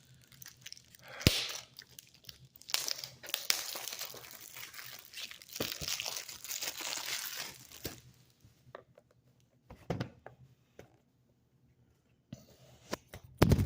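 Plastic shrink wrap being torn and crinkled off a DVD case, with a sharp knock about a second in, then a few clicks and light knocks of the case being handled and a louder knock at the end.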